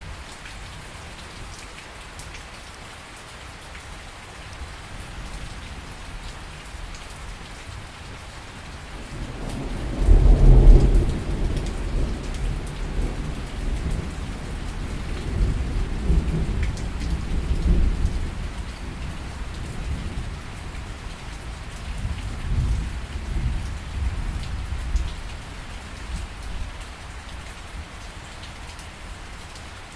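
Steady rain in a thunderstorm, with a roll of thunder building about nine seconds in, loudest at its first crack and then rumbling on in waves for some fifteen seconds before dying away under the rain.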